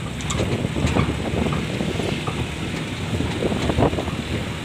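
Wind buffeting the microphone over the low road rumble of a moving vehicle, heard from its open cargo bed, with scattered rattles and knocks.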